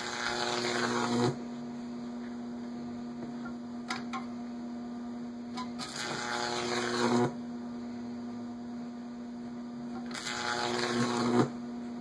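Microwave oven transformer humming steadily while the Jacob's ladder arc buzzes and crackles three times. Each burst grows louder and then cuts off suddenly as the arc climbs the wires and breaks.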